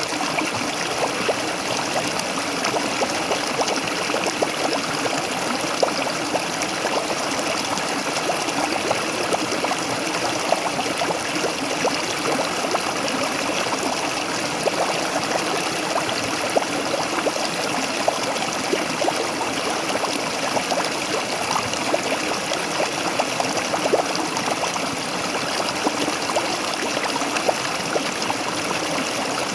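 Waterfall: a steady rush of falling water, with many small splashes.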